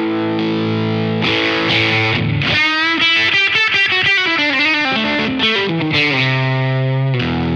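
Overdriven electric guitar played through an LPD Fifty5 drive pedal, its tone reshaped by the LPD CLE-304's active EQ. A chord rings, then about two and a half seconds in a fast lead run with string bends and vibrato, settling into held notes near the end.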